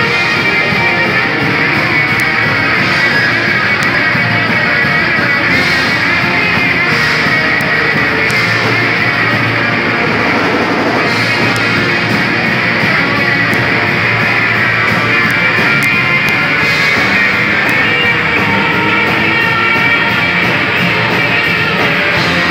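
Live rock band playing a song at full volume: electric guitars over a drum kit, steady and dense throughout.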